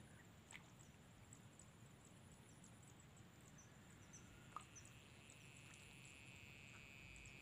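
Near silence: faint, high, steady insect chirping over quiet outdoor background, with one soft tick about four and a half seconds in.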